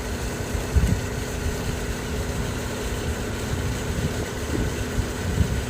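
An engine idling steadily, with one short knock about a second in.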